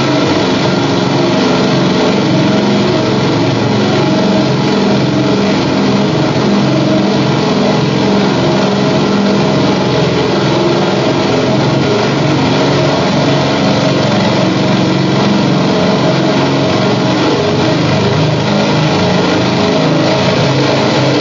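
Amplified calculators pushed into running electric fans: a loud, steady, unbroken wall of mechanical noise with many buzzing tones layered through it.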